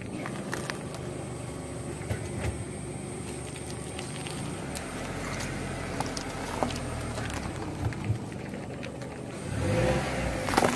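Car engine running at low speed as the tyre rolls slowly over a citrus fruit, with scattered small cracks and pops. About ten seconds in, the engine note gets louder and rises as the car pulls forward.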